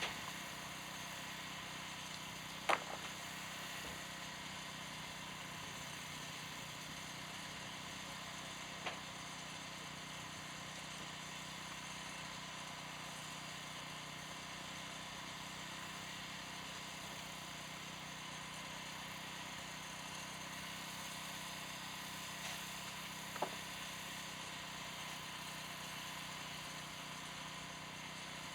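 Steady mechanical hum of running machinery, an engine or generator drone with a constant pitch, broken by three brief sharp knocks: one about three seconds in, one about nine seconds in and one near the end.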